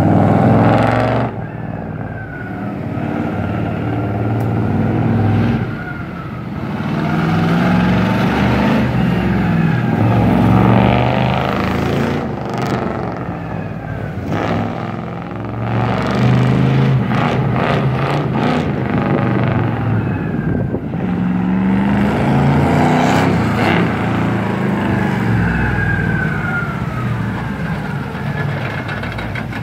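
Engine of a monster-truck school bus driving a circuit on its big off-road tyres. It revs up and eases off several times, rising and falling in pitch as the bus speeds up and slows.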